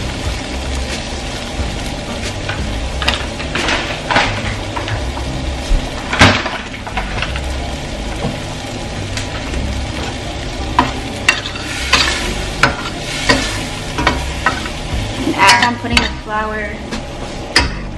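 Butter, onions and peppers sizzling in a stainless steel sauté pan as flour is worked in to start a roux. In the second half a spoon scrapes and knocks against the pan, the knocks coming often.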